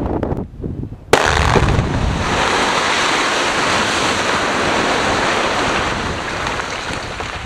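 Quarry rock blast with explosives: a sudden crack about a second in, then several seconds of loud, continuous rushing rumble as the rock breaks and is thrown, slowly fading near the end. Wind buffets the microphone before the blast.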